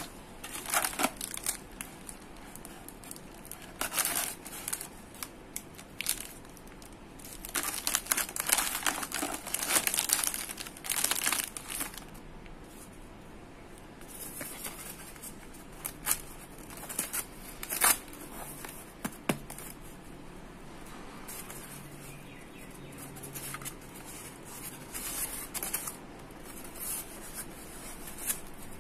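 Thin plastic ice-pop wrappers and a polystyrene foam box being handled: irregular crinkling and rustling, busiest in the first half, then sparser and quieter, with a single sharp click about two-thirds of the way through.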